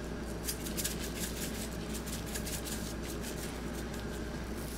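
A large stockpot of seasoned water heating on a stove burner: a steady low hum with faint, irregular ticks and crackles.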